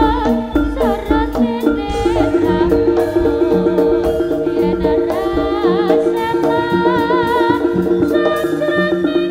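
Javanese jaranan music: a wavering sung melody over a gamelan-style ensemble of sustained pitched tones and drumming.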